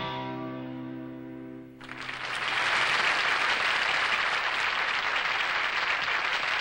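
A band's last chord rings out and fades. About two seconds in, a studio audience breaks into loud, steady applause that carries on.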